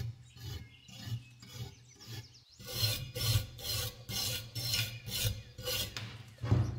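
Metal scraper scraping rust off a cast iron waffle-iron plate, in short repeated strokes at about two to three a second. A dull knock near the end.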